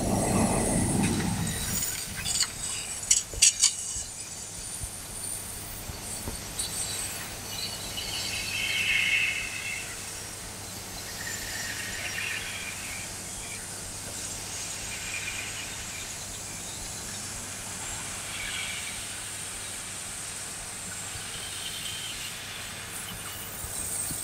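Fiber laser cutting 12.5 mm mild steel with oxygen assist gas: a steady hiss with scattered crackling and spitting from the sparks and molten slag. There is a loud low rush at the very start and a few sharp clicks about three seconds in.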